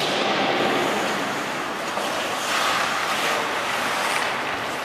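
Ice hockey rink ambience during play: a steady, noisy wash from the crowd and from skates cutting the ice, with one sharp stick-or-puck knock at the very start.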